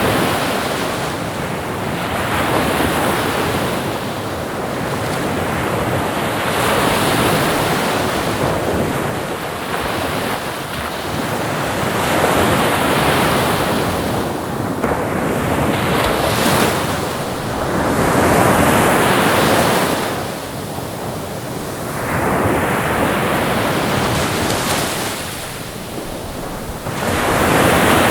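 Ocean waves breaking and washing in, in slow surges every three to four seconds, each swelling to a loud hiss and falling back.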